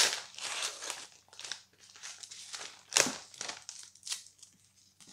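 Paper envelope sealed with washi tape being opened by hand: paper crinkling and tearing in irregular bursts, with the loudest pulls at the start and about three seconds in.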